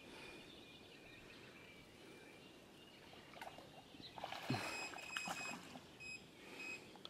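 Faint outdoor ambience with a short, thin, high call repeating now and then, and a cluster of small clicks and knocks from about four seconds in.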